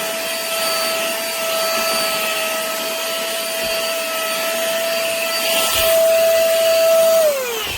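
Mini cordless handheld vacuum cleaner running with a steady high motor whine and rushing air. It gets a little louder about three-quarters through, then is switched off and winds down with a falling pitch near the end.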